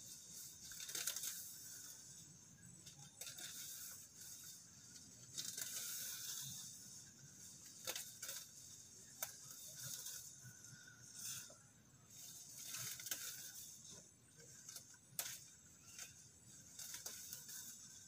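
Grass and weeds being pulled up by hand and tossed aside: irregular rustling and tearing of leaves and roots, coming in short bursts every second or two with a few sharp snaps.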